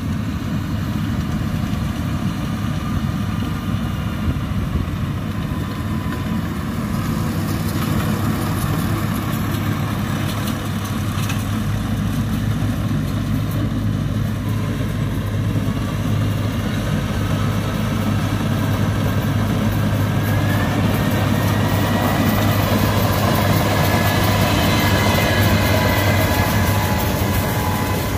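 Yanmar AW82V combine harvester's diesel engine and machinery running steadily under load while cutting rice, noisy, with the hum growing louder and a rising whine coming in over the second half.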